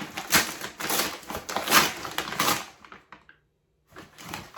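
Packaging being handled and unwrapped: irregular crinkling and rustling of paper or plastic wrapping, which stops for about a second near the end and then starts again.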